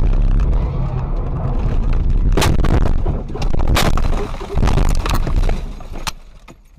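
Car crash heard from the dashcam inside the car: a low rumble as the car leaves the road into trees, then a run of sharp, heavy impacts from about two and a half to six seconds in, fading near the end.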